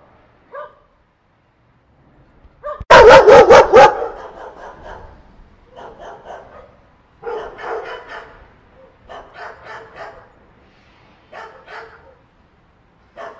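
A group of dogs barking: a very loud volley of about five quick barks some three seconds in, then shorter, quieter bursts of barking every second or two.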